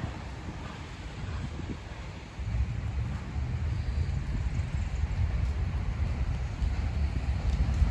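Wind buffeting the microphone: an uneven low rumble that grows louder about two and a half seconds in.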